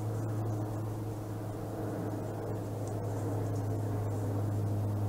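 A steady low hum with a faint hiss over it.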